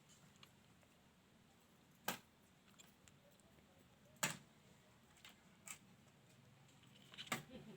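Near silence broken by four short, sharp clicks spaced a second or two apart, the middle one the loudest: small handling clicks.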